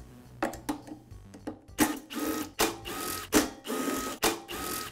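Cordless drill driver backing out the screws that hold the recoil starter on a Husqvarna backpack blower, its motor whining in four short bursts in the second half, after a few clicks.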